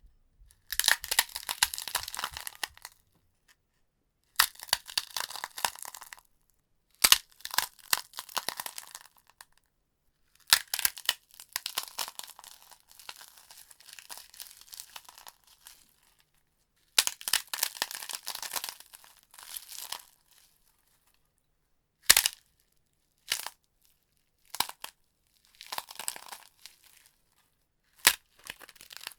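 Thai khao kriap crackers being crushed, crackling and crunching in bursts of a few seconds with silent gaps between them, and a few single sharp cracks in the later part.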